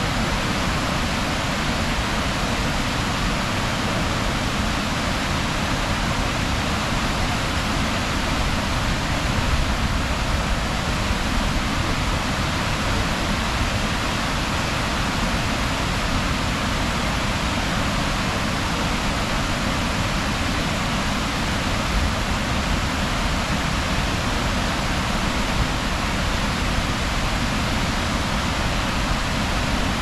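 Waterfall rushing steadily: a constant, unbroken noise of falling water.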